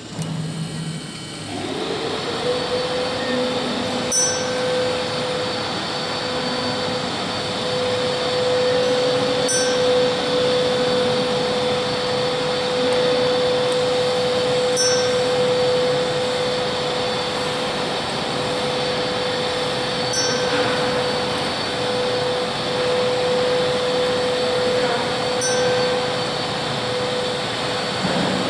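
Electric drive mechanism of a moving nativity scene running: a steady motor whine that rises in pitch and settles about two seconds in, over a whirring hum, with a light click about every five seconds as the mechanism cycles.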